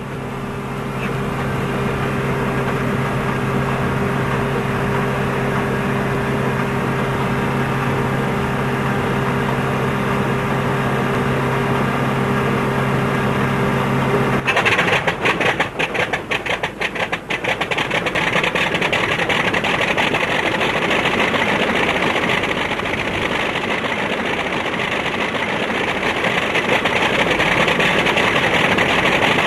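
Engine start of a P-2E Neptune's inboard Wright R-3350 radial piston engine: a steady hum with several held tones, then about halfway through the sound changes abruptly as the engine catches with a few seconds of irregular popping and settles into steady running.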